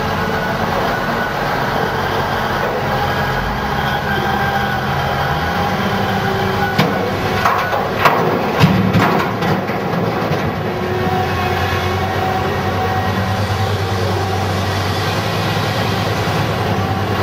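Diesel engines of a Komatsu PC750SE-7 hydraulic excavator and a Komatsu HD605 dump truck running steadily under load. About seven seconds in, a bucketload of blasted basalt is dumped into the truck's steel bed, a string of loud bangs and rattles lasting about two seconds.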